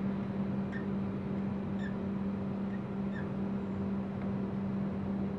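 A steady low hum, with a few faint short squeaks of a marker pen writing on the caravan's fibreglass wall.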